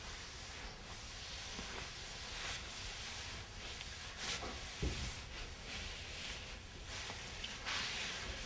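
Faint hiss with soft scuffs and rubs of a dancer's lead-coated gloves, shoes and clothing sliding on the floor, several short brushes and one dull thump a little before five seconds in.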